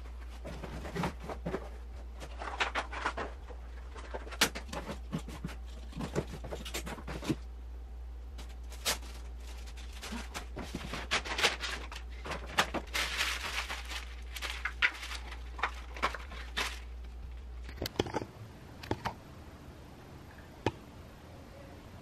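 Cardboard boxes and packaging handled during tidying: rustling and crinkling with scattered sharp knocks as things are picked up and put down, over a low steady hum that stops about eighteen seconds in.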